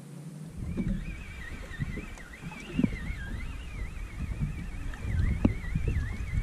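Wind and water noise around a small fishing boat at sea, with a few knocks. A thin, wavering high whine runs underneath.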